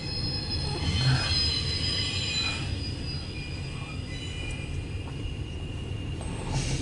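CSX intermodal freight train's cars rolling past with a steady low rumble, with thin high-pitched wheel squeal over it.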